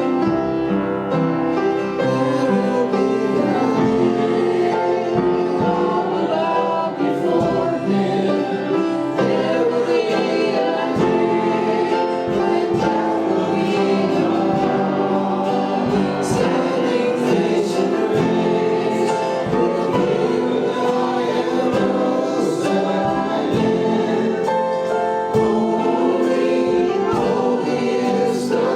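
Church worship music: a group of voices singing a slow gospel song over a band, steady throughout.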